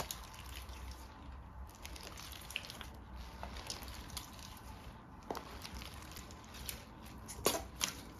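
Hands kneading and pressing a firm wood-glue slime, making soft sticky squelches and small clicking pops, with a few louder pops near the end.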